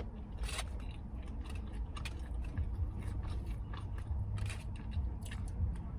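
Close-up chewing and mouth sounds of a person eating: irregular wet smacks and clicks, over a steady low rumble.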